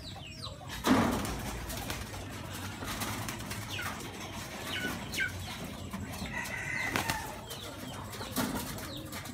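Domestic pigeons' wings flapping as they take off, loudest about a second in and again near the end. Between them come several short, high, falling bird chirps.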